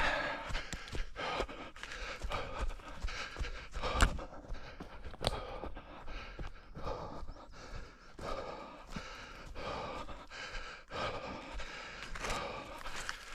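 A runner breathing hard in repeated panting breaths, with footfalls and short knocks.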